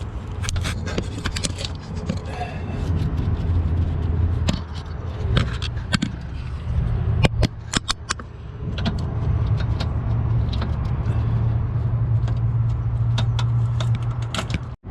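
Hand tools and sockets clinking and knocking on metal bolts and brackets at irregular intervals, with the steady low hum of a running engine underneath.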